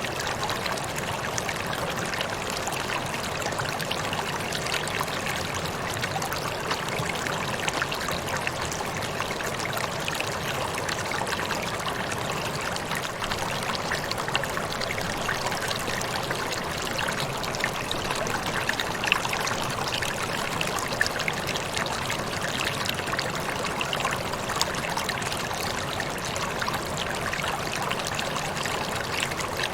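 A waterfall's falling water, a steady rushing and splashing with small splashes scattered through it.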